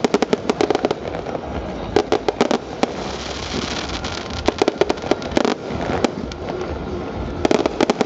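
Aerial fireworks bursting: quick clusters of sharp bangs and crackles coming every second or two, over a steady background hiss.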